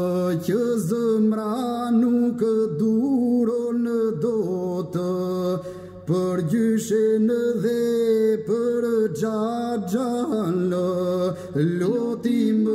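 Albanian elegy sung by male voices, a lead singer and a responding second voice, in long, ornamented, chant-like phrases with held notes. There is a brief break about halfway through.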